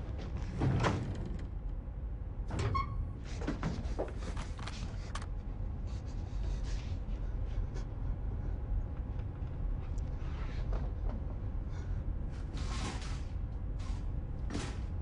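Boiler-room machinery ambience: a steady low rumble, broken by several short noisy bursts and a metallic clink that rings briefly about three seconds in.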